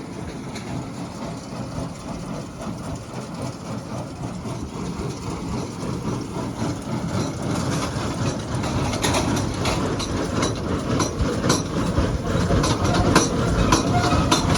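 Hesston 1840 inline square baler and its tractor working, a steady heavy mechanical clatter. It grows gradually louder, with sharp repeated clacks from about halfway on.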